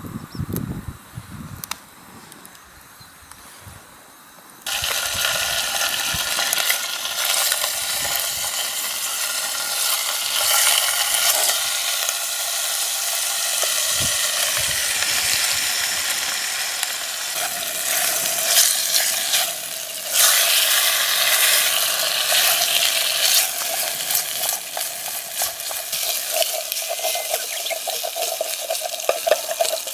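Bacon going into a hot pan about four and a half seconds in and frying with a steady sizzle, stirred and scraped with a utensil as it sticks to the pan.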